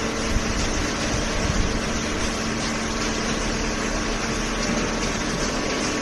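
Horizontal cardboard baler running, its hydraulic pump and motor giving a steady mechanical hum under a constant noisy wash.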